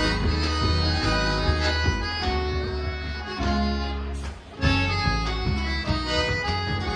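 Instrumental passage of gaúcho native-style music: piano accordion and acoustic guitar with bass. The band stops briefly about four and a half seconds in, then comes back in together.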